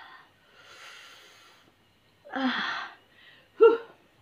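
A woman's breathy gasps and hissing intakes of breath while eating very spicy chili noodles: a long hiss near the start, a louder gasp about halfway and a short, sharp gasp near the end, her reaction to the burning heat.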